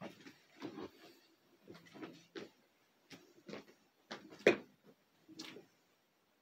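Handling noises from a hunting bow being picked up and readied: scattered knocks, rustles and clicks, with one sharper knock about four and a half seconds in.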